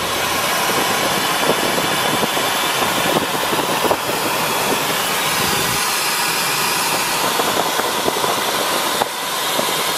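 Steady rush of airflow over an engineless Duo Discus glider's canopy and fuselage in a fast straight glide, heard from inside the cockpit as an even, loud hiss.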